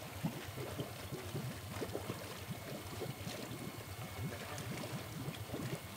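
Fish-pond water splashing and gurgling: a steady run of many small, irregular splashes.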